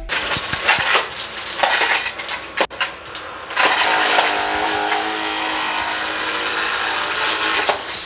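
Dyson V11 cordless stick vacuum sucking up small Lego pieces from carpet, the hard plastic bricks clattering and rattling through the floor head. From about three and a half seconds in, a steady motor whine runs under the rattle, sounding a bit iffy.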